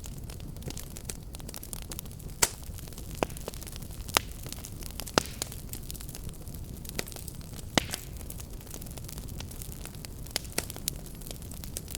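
Fireplace fire crackling: a steady low rumble of burning under scattered sharp pops and clicks, the loudest coming about two and a half, four, five and eight seconds in.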